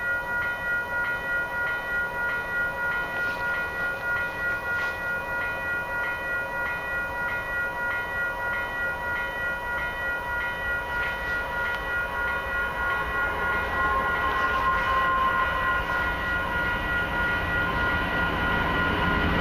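Level-crossing warning bell ringing in a steady, even rhythm of about two strokes a second while the crossing lights flash. In the last few seconds an approaching train grows louder beneath it.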